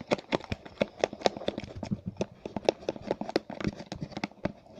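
A thick, lumpy homemade slime mixture of glue stick, water and baking soda being stirred by hand: quick, irregular clicks and taps, several a second.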